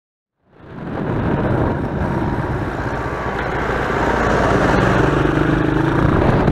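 Engine noise fading in about half a second in and growing louder: a 125cc quad's engine running along a road as a John Deere tractor towing a cultivator drives past close by.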